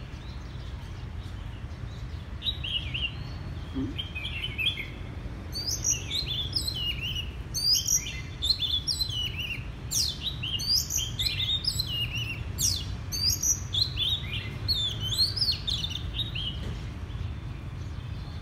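Oriental magpie-robin singing a varied run of quick whistled and scratchy phrases. The song is sparse at first, fuller and louder from about five seconds in until near the end. A steady low rumble runs underneath.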